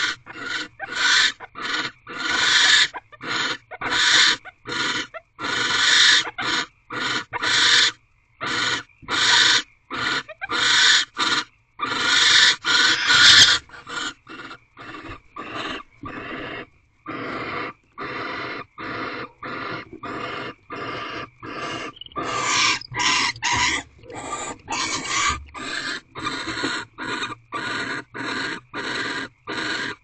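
Barn owls mating, giving a long series of short raspy hisses, about two a second. They are louder in the first half, softer for a while after the middle, then louder again.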